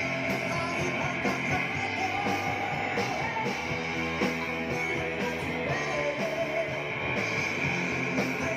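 A band playing rock music, with guitar to the fore and a steady, continuous sound.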